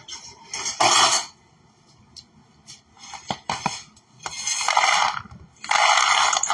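Knife and pan scraping and clattering as cooled, sticky spiced nuts are broken up and moved into a bowl: four short scraping rattles with a few sharp clicks between them.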